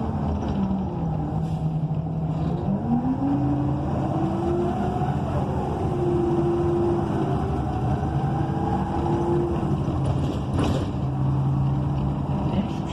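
Inside a transit bus: its Cummins Westport ISL G natural-gas engine and Allison B300R automatic transmission wind down, then rise in pitch as the bus accelerates, with an upshift about five seconds in, before running steady. The pitch drops again near the end, and there is a single knock or clunk near eleven seconds in.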